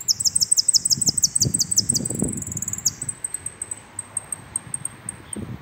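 Caged saffron finch (jilguero) singing: a fast run of about a dozen clear, high downslurred notes over the first three seconds, then a steady string of thin, high chips.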